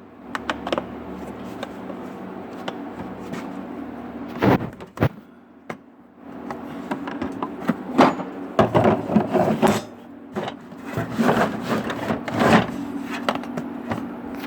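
Hand tools and cases being handled and shifted around in a toolbox drawer. Scattered knocks and clatter, a sharp knock about four seconds in, and a longer run of rattling in the second half.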